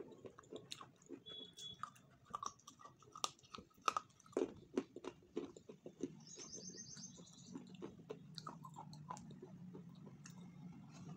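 Close-up chewing and biting: a person eats a soft chocolate-covered food, with many short wet mouth clicks and lip smacks.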